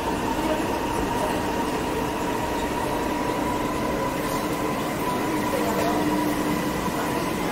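Steady running noise inside a metro train car: a constant rumble with a few steady whining tones over it.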